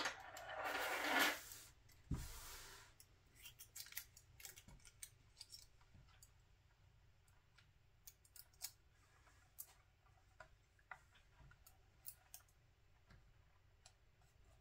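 Faint scattered clicks and taps of fingers handling a plastic scale-model car chassis and pressing thin metal foil onto its exhaust, with a couple of brief rustling hisses in the first few seconds.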